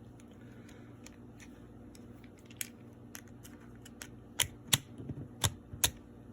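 Irregular sharp metal clicks and taps as a pin is drifted out of an Erma LA22 .22 rifle during disassembly, sparse at first and louder and closer together in the second half.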